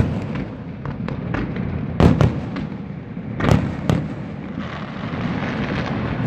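Aerial fireworks bursting: sharp bangs, a pair about two seconds in and another pair around three and a half seconds, with smaller pops between and a rumbling echo underneath. A denser crackling hiss builds near the end.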